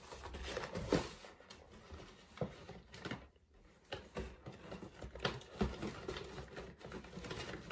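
Packaging being handled and pulled at while unwrapping a gift: irregular, fairly quiet rustling and crinkling with scattered small clicks and taps.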